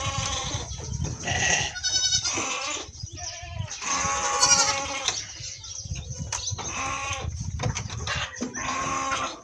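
Goats bleating repeatedly: several separate calls, some with a quavering, wavering pitch.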